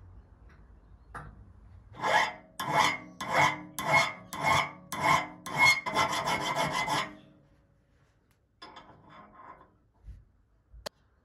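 A hand file worked back and forth on a metal fitting of a pottery-wheel frame: about eight loud strokes at a steady pace, running together near the end, then a few lighter strokes and a single sharp click.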